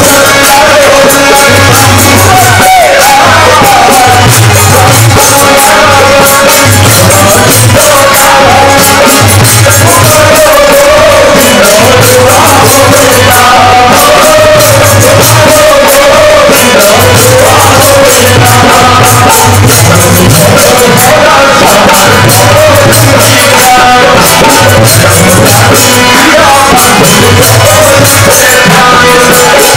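Devotional nam sankirtan: men singing together to a harmonium's sustained chords and a steady drum beat, with light percussion clicking along in rhythm. The music is loud throughout.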